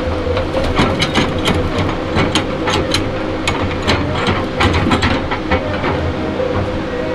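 Tigercat 234B log loader's diesel engine and hydraulics running steadily, with a string of sharp, irregular clicks and knocks over it, two or three a second.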